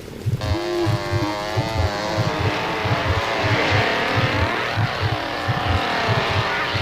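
Car engine sound effect: an engine comes in about half a second in and runs with a wavering, shifting pitch, growing noisier as it goes. Beneath it, a steady low pulse beats about three times a second.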